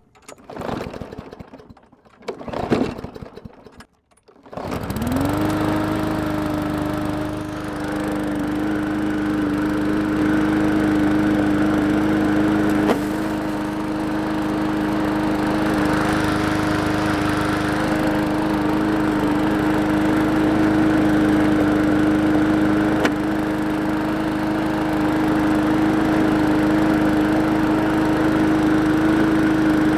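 Walk-behind lawn mower engine starting up about four seconds in, after a few short noises, then running steadily at one even pitch. A few sharp knocks come through the engine noise.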